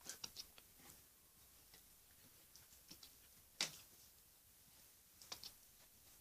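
Ten-week-old Alaskan Malamute puppy hiccuping: faint, short, sharp hics, a few at the start, the strongest one about three and a half seconds in, and a quick couple more near the end.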